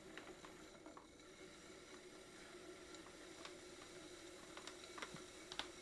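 Faint steady hum of a potter's wheel, with a few light scattered clicks and scrapes of fingers working the trimmed leather-hard clay base.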